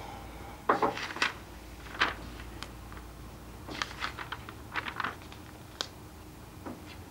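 Irregular light clicks, taps and rustles of papers and small objects being handled on an office desk and table: a few around the first two seconds and a cluster about four to five seconds in.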